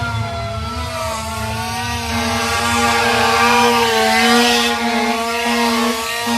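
Several sirens wailing at once, their pitches rising and falling slowly and overlapping, over a steady low horn tone that drops out briefly a few times.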